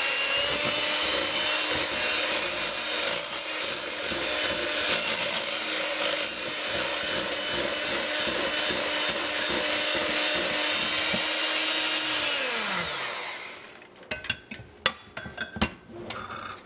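Electric hand mixer running at high speed, its beaters whipping a thick lotion in a glass bowl, with a steady motor whine. About 12.5 s in it is switched off and the pitch falls as the motor winds down, followed by several sharp clicks and knocks.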